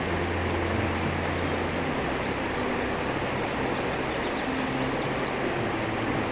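Rocky river rushing steadily over stones, with a few faint bird chirps.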